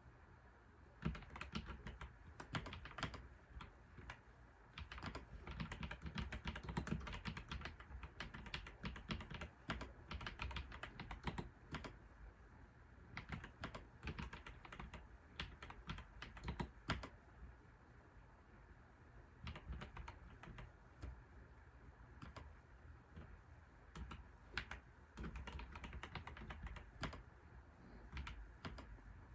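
Typing on a computer keyboard: runs of quick key clicks in bursts, with short pauses between them.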